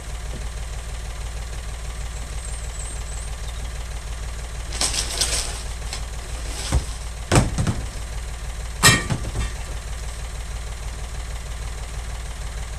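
Heavy scrap metal pieces, brake drums and mower parts, knocked and shifted about on a van's wooden floor: a handful of clanks and knocks in the middle of the stretch, two of them louder. Under it an engine idles steadily.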